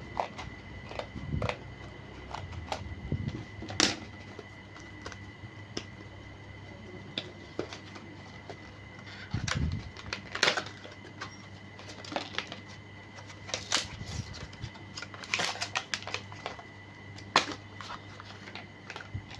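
Irregular light clicks and taps of small laptop parts being handled as a replacement SSD is fitted in place of the old hard disk, over a faint steady high whine.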